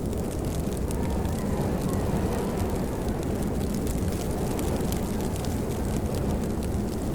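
Steady rain falling: a dense, even hiss weighted low, with fine drop ticks scattered through it.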